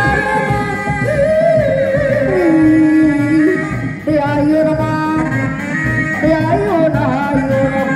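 Sundanese Reak music: dense, fast dogdog drumming under a singing voice carrying a long, gliding, ornamented melody.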